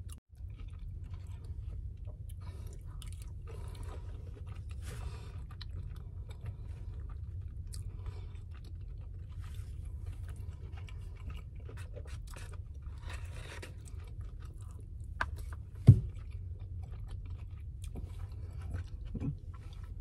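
A person chewing food close to the microphone, with small mouth sounds and light clicks from a plastic spoon and paper bowl, over a steady low hum. A single sharp click stands out about sixteen seconds in.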